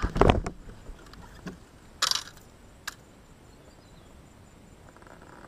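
Fishing rods and baitcasting reels being handled in a kayak. A dull knock comes just after the start, a brief rustle about two seconds in, and a few small sharp clicks.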